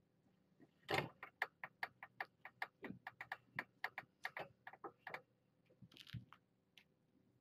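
DSLR camera shutter firing in a continuous burst: a rapid, even run of sharp clicks, about five a second, for about four seconds, the first one the loudest. A short rustle and a single click follow near the end.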